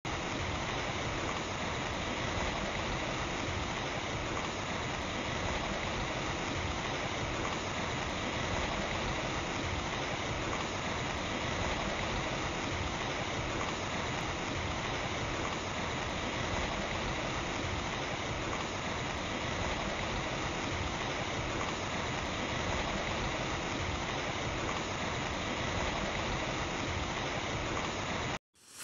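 Muddy floodwater rushing down a street: a steady, even rushing noise that cuts off suddenly near the end.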